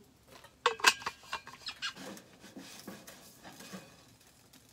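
Handling noises: a few sharp clicks and knocks about a second in, then softer scraping and rubbing as a plastic spatula is worked under a pancake in a nonstick frying pan.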